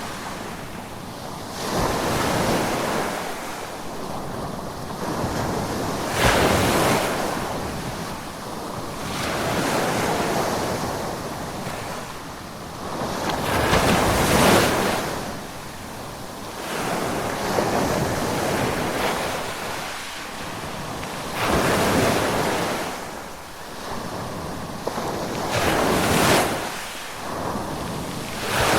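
Ocean waves breaking on a shore, each surge of surf swelling and fading every three to four seconds over a steady wash, with some wind.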